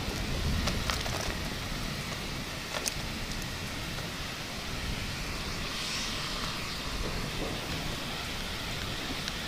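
Steady heavy rain with scattered drop impacts, and a low rumble of thunder over the first couple of seconds.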